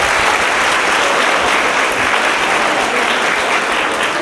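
An audience clapping steadily, a dense sustained round of applause.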